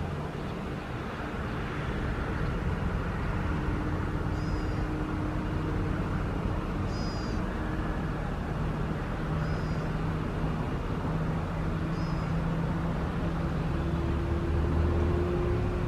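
Airliner jet engines running steadily, a low hum with one tone rising slowly near the end. A bird gives a short high chirp about every two and a half seconds.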